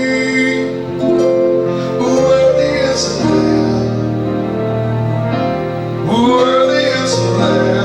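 Live worship music: sustained instrumental chords with a voice singing over them, the sung pitch sliding up near the end.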